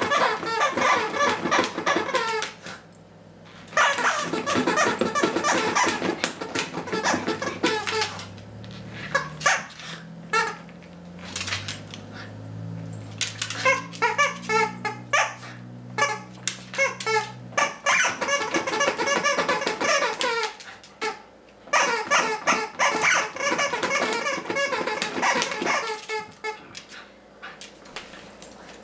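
Rubber chicken squeaky toy squawking over and over as a small dog chews and squeezes it in its mouth, in long runs of rapid squeaks broken by short pauses.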